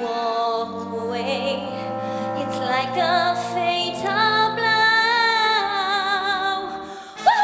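Musical theatre song: singers over a backing track, holding long wavering notes, the longest about halfway through.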